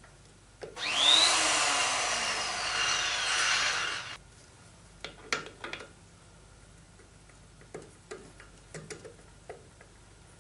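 A loud rushing, hissing noise of about three and a half seconds that starts and stops abruptly, followed by a few light metallic clicks and clinks as small engine parts are handled.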